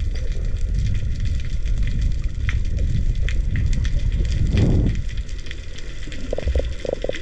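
Underwater sound picked up by a camera in its housing: a muffled low rumble of moving water with constant faint crackling clicks. A louder whoosh comes about four and a half seconds in, and a few short muffled bursts come near the end.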